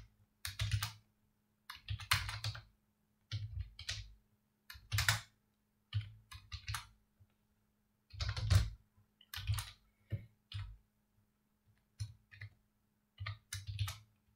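Computer keyboard typing in short runs of keystrokes with pauses of a second or two between them. A faint steady hum sits underneath.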